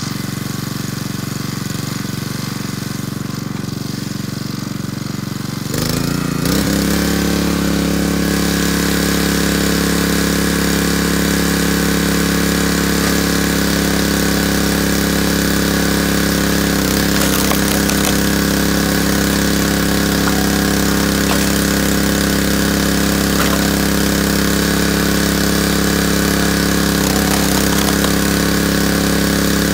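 Small gas engine of a hydraulic log splitter running steadily. About six seconds in, its pitch and loudness step up slightly and stay there.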